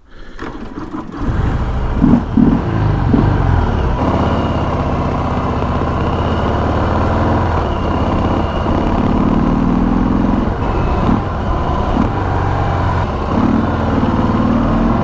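Stock Harley-Davidson Sport Glide's Milwaukee-Eight 107 V-twin engine running through its stock exhaust while being ridden. It comes in about a second in and then runs steadily, rising and easing in a few places.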